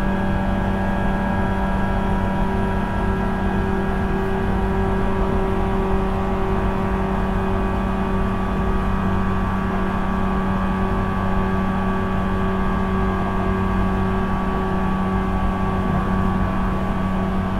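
Running sound of a JR 475 series EMU heard from the deck of motor car KuMoHa 475-42: steady whine from its MT54 DC traction motors and 19:80 reduction gears over a low hum and wheel-on-rail rumble, at a steady speed.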